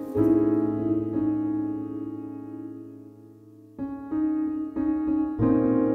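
Background music on piano: one chord rings out and slowly fades over about three seconds, then a run of new chords is struck in quick succession.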